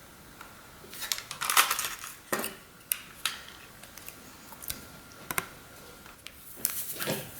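Kitchen utensils and dishes clinking and clattering in short, irregular bursts, with a cluster of clatter a second or two in and another near the end.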